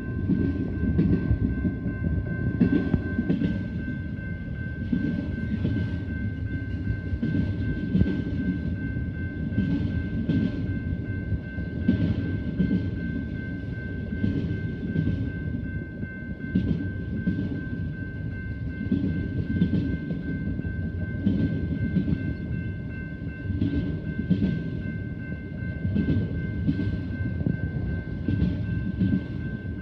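Train rolling past: a steady rumble of railcars with irregular clacks of wheels over rail joints, and a thin, steady high-pitched tone throughout.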